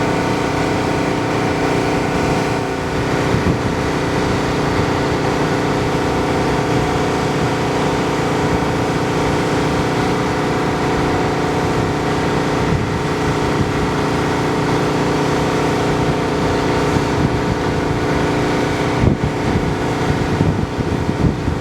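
Volvo EW160D wheeled excavator's diesel engine running steadily, with a few knocks about three-quarters of the way through.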